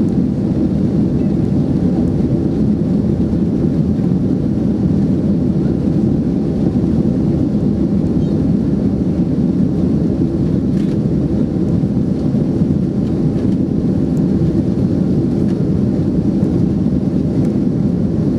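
Cabin noise of a British Airways Boeing 767-300ER on its takeoff roll, heard from inside the cabin: its Rolls-Royce RB211 turbofans at takeoff thrust and the wheels rolling on the runway make a loud, steady, deep noise.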